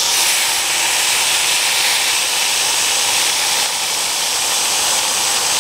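Compressed air hissing steadily as it is forced through a small 3D-printed PLA rocket combustion chamber, feeding the burning PLA fuel.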